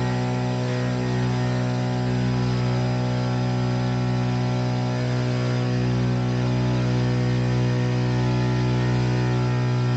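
Archaeopteryx hang glider's electric pusher propeller motor running at a steady speed during the take-off climb: a steady hum with one strong low tone and many overtones, over airflow noise, heard from the cockpit.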